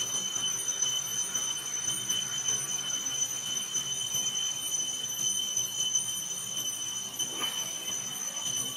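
Steady, unbroken high-pitched insect drone, one unchanging tone with overtones above it, with one short sound about seven and a half seconds in.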